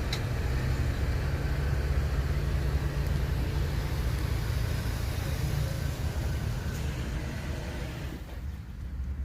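Steady low rumble, with a single sharp click at the very start; it eases off slightly about eight seconds in.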